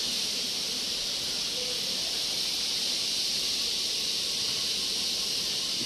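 Steady, high-pitched hiss of an insect chorus, unbroken throughout.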